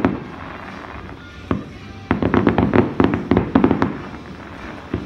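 Fireworks going off: a bang at the start and another about a second and a half in, then a rapid run of bangs and crackles for nearly two seconds, and one more bang near the end.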